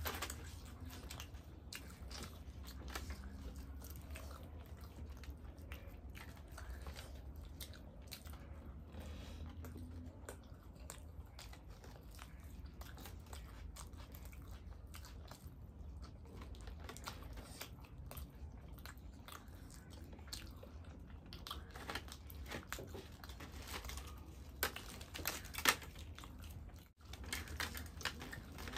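Close-miked eating sounds of people eating chole bhature by hand: chewing, biting and soft wet mouth clicks throughout, with a few louder clicks near the end.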